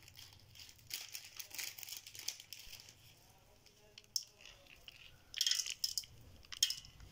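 A hand working raw meat pieces and spices in an aluminium pot, with bursts of crackly rustling about a second in and again around five and a half seconds.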